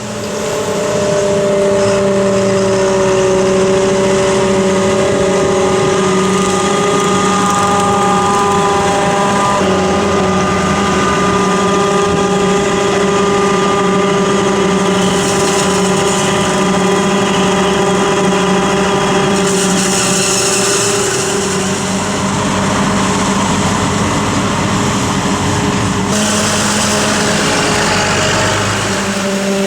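Heavy farm machinery at maize harvest running steadily under load, a forage harvester and tractors with a steady pitched drone. A hiss rises over it for a few seconds past the middle and again near the end.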